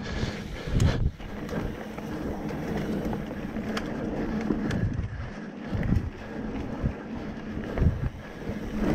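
Mountain bike rolling along a dirt singletrack, tyres on the ground with wind on the microphone, and a few low thumps and rattles as the bike goes over roots and bumps.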